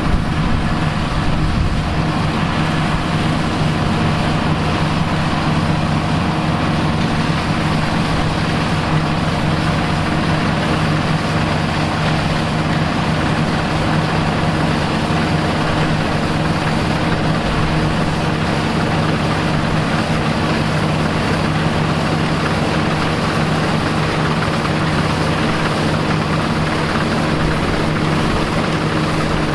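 Engine of a vintage farm machine, such as a tractor or combine harvester, running steadily at a constant speed.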